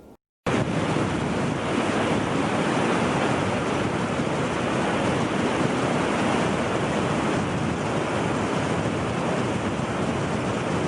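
Steady rushing wind, loud and even throughout, cutting in abruptly after a split second of silence.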